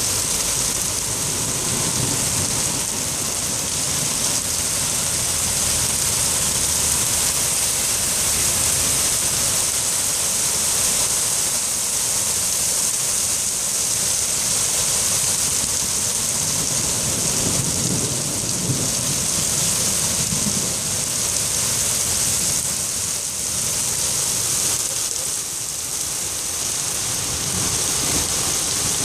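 Steady heavy rain falling and splashing, an even hiss, with low rumbles swelling up a couple of times.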